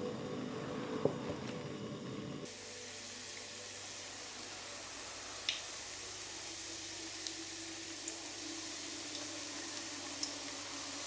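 Olive oil trickling from a bottle into a frying pan, then, after a cut about two and a half seconds in, rings of rosquilla dough sizzling as they deep-fry in hot olive oil, with a few sharp pops and crackles.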